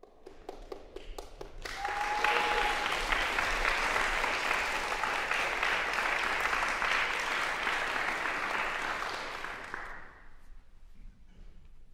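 Audience applause in a concert hall. A few scattered claps swell into dense, steady clapping about two seconds in, which dies away shortly before the end.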